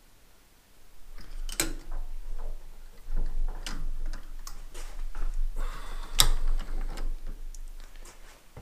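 Metal clicks and knocks from hand work at a lathe's four-jaw chuck as the chuck is turned and a metal part is taken out of its jaws. Two sharper metallic clacks come about a second and a half in and again after about six seconds.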